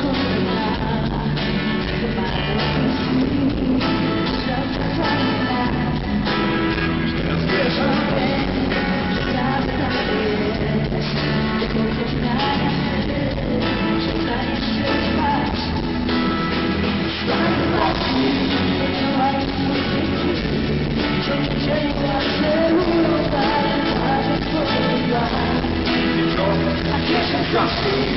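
Live pop-rock song played through a hall PA: electric guitar, drums and keyboards, with a man and a woman singing into microphones, heard from the audience.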